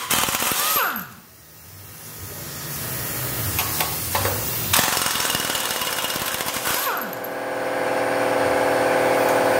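Pneumatic impact wrench hammering on the flexplate bolts of a Land Rover 300Tdi diesel engine. There is a short burst at the start and a longer, steady run in the last few seconds.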